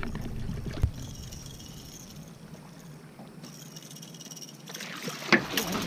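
Faint steady insect chirring from the night air, then a cluster of sharp knocks and splashing near the end as the catfish is brought to the side of the boat and grabbed.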